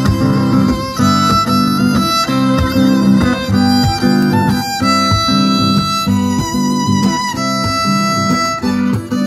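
Violin playing a melody over a rhythmically strummed acoustic guitar, an instrumental passage of a song.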